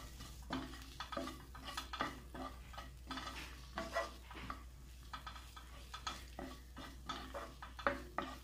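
Wooden spatula stirring chopped onion, capsicum and chilli flakes around a nonstick frying pan, in short scraping strokes about one to two a second, with a light sizzle of the vegetables frying in oil.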